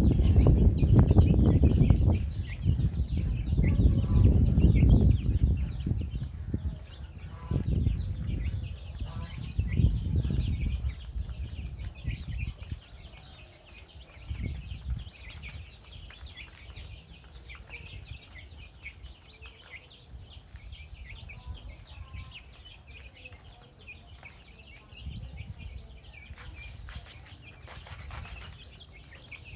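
A flock of young chicks peeping constantly in many short high chirps while they peck at grain. Low rumbling noise sits beneath them, loudest in the first dozen seconds and then dying down.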